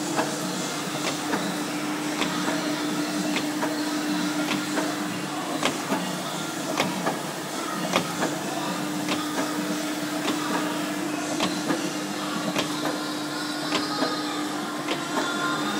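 Arsoma SFD 3 punching unit running on a printing press, with all four punching heads tooled up and punching: a steady machine hum with a held tone, and sharp clicks roughly once a second.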